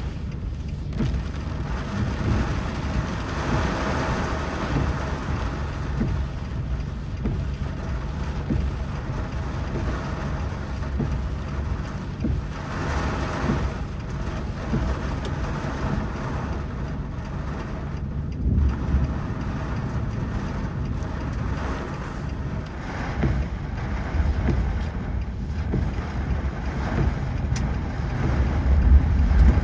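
A motor vehicle running, a steady low rumble that grows louder near the end.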